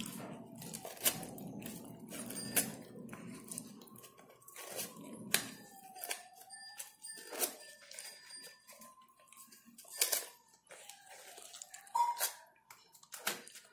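Paper rustling and crinkling as hands shape a paper flower on its stem, in scattered sharp crackles. A faint wavering tone sounds underneath.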